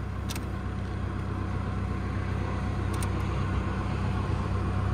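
An engine idling steadily with a low hum, with two faint clicks over it.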